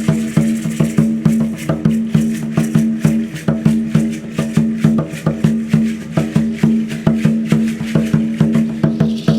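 Pre-Hispanic-style Mexican percussion playing a fast, steady rhythm: a pitched wooden drum struck several times a second over the shake of rattles.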